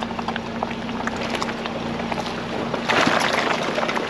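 Ford Bronco Badlands crawling along a rocky dirt trail: a steady low engine drone under scattered knocks and crunches from tyres and suspension, with a louder burst of scraping noise about three seconds in.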